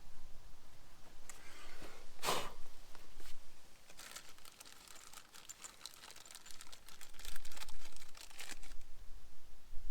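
Plastic packaging crinkling as small hub-kit parts and screws are handled, with a short sharp rustle about two seconds in and a longer stretch of crackling from about four seconds to near the end.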